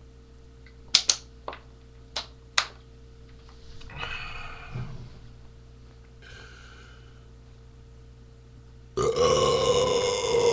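A few sharp clicks and knocks in the first three seconds, then about nine seconds in a man lets out a long, loud belch after chugging a can of beer.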